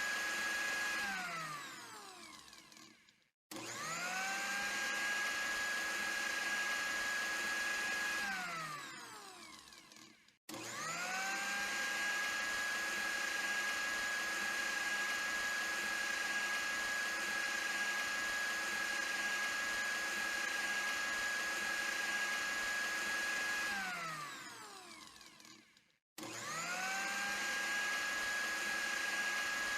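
Electric blender motor switched on and off repeatedly: each run spins up quickly to a steady high whine, holds, then winds down in falling pitch to a stop. A run winds down about a second in, and the motor then starts again three times, the middle run lasting about thirteen seconds.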